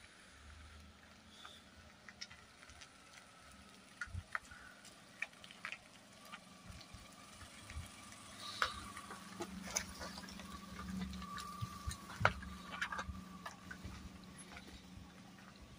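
Maruti Suzuki Alto hatchback driving slowly past on a wet road: a faint engine hum that grows louder about halfway through as the car comes close and goes by, then fades. Scattered light clicks and crackles of the tyres on the wet, gritty surface run through it.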